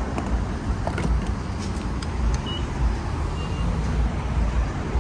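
Steady low rumble of a car at a fuel pump, with a few faint clicks and two short high beeps about halfway through.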